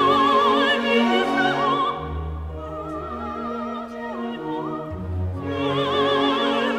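Background music: operatic singing with a wide vibrato over a sustained orchestral accompaniment.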